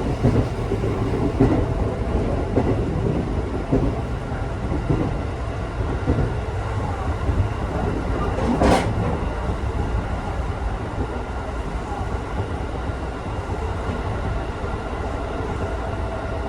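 Local electric train on the Tokaido Main Line running at speed, heard from inside the carriage: a steady low rumble with irregular wheel-on-rail knocks, and one sharp knock about nine seconds in.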